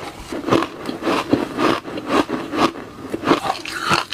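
Re-shaved refrigerator ice crunching as it is bitten and chewed: a quick, uneven run of short crunches.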